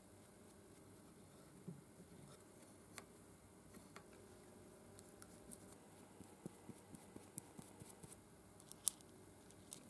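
Near silence with faint, scattered clicks and taps of small steel parts and an Allen key being handled; one sharper click near the end.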